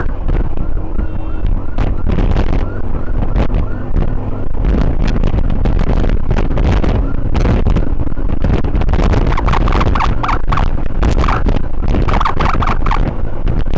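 Emergency vehicle siren sounding in quick, repeated rising whoops, heard from a moving motorcycle over heavy wind rush and engine rumble. The siren comes through more strongly in the later part.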